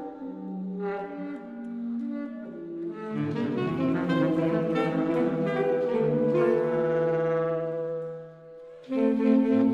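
Saxophone quartet (alto, two tenors and baritone) playing long held notes that stack into chords. More voices join and the sound swells about three seconds in, then dies away near eight seconds. The whole group comes back in loudly on a full low chord about nine seconds in.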